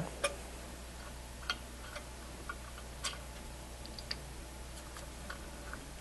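Scattered light clicks and taps of metal parts being handled as the handle-and-piston assemblies come off a YELLOW JACKET Series 41 refrigerant gauge manifold, about ten small ticks over a steady low hum.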